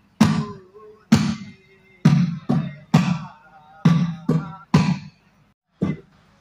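A traditional folk drum beaten in an uneven pattern of strong, deep beats, often in twos or threes about half a second apart, each ringing briefly. Faint held notes sound between the beats.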